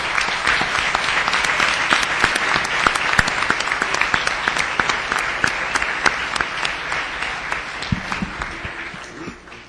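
Large audience applauding, a dense steady clapping that thins out and dies away over the last couple of seconds.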